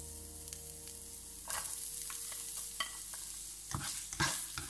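Minced ginger and garlic sizzling in hot oil in a nonstick pan, the sizzle strengthening about a second and a half in. A slotted spatula stirs them, knocking against the pan several times near the end.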